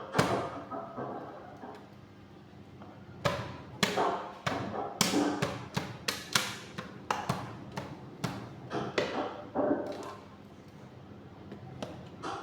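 A run of sharp knocks and clatters of hard parts, about a dozen hits between roughly three and ten seconds in, over a steady low hum.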